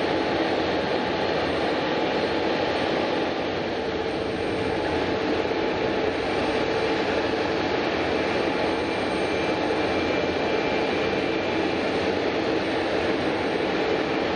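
Jet airliner engines running at a steady level: an even rumble and hiss with a faint whine.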